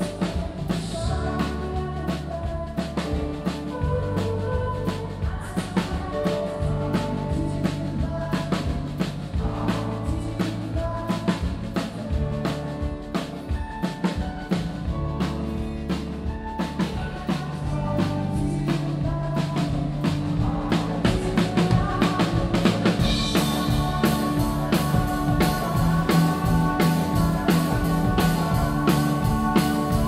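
Rock band playing a song: a drum kit with snare and bass drum keeps a steady beat under bass guitar and electric guitar. The band gets fuller and louder about three-quarters of the way through.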